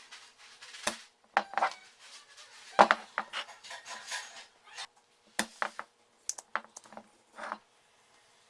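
Small metal tools and parts clinking and knocking on a workbench: irregular sharp clicks, loudest about three seconds in, stopping shortly before the end.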